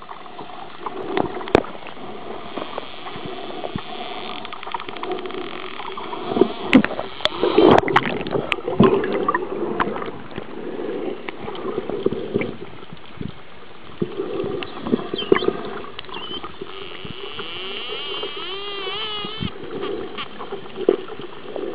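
Bottlenose dolphins heard underwater: scattered sharp clicks throughout, over a steady watery rush, with high wavering whistles in the later part.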